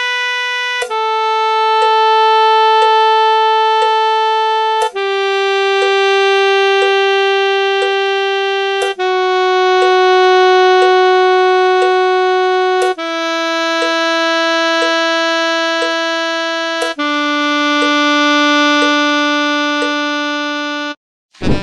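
Saxophone playing the B major scale downward, six long steady notes of about four seconds each stepping down in pitch, with a faint click about once a second like a metronome. The last note cuts off shortly before the end.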